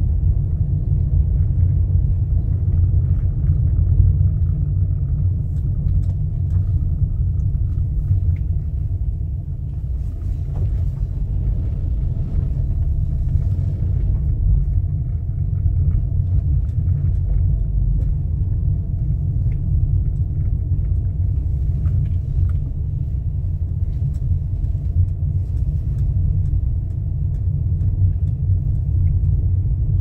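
Steady low rumble of a car driving slowly, heard from inside the cabin: engine and road noise with no sudden changes.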